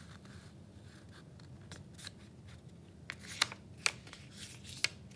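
A sheet of origami paper being folded in half and creased flat by hand: a scatter of short, crisp paper crackles and clicks, about six of them, over a faint steady hum.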